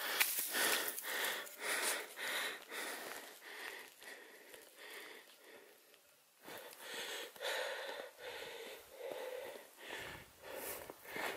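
A hiker breathing hard while breaking trail uphill through deep snow, the breaths coming in quick, repeated rushes, with a short lull about six seconds in.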